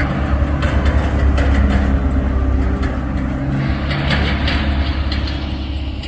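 Tractor engine running steadily as it drives along, towing a water tank trailer; a low, even drone that eases off toward the end.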